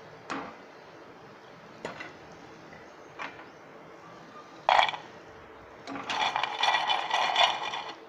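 A perforated steel skimmer clinks against a steel kadai as crisp deep-fried macaroni is lifted out of the oil. A single loud metal knock comes just before five seconds in. Near the end the hard, crunchy fried pieces rattle and clatter in a steel dish for about two seconds.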